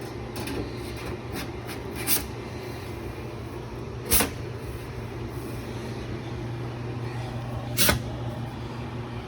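Visor being slid onto a range hood and seated in its clips: a few sharp knocks and clicks, the loudest about two, four and eight seconds in, over a steady low hum.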